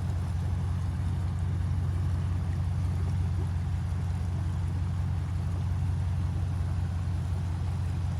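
Muddy floodwater of a flash-flooding desert creek rushing past as a steady, deep rumble with a hiss above it.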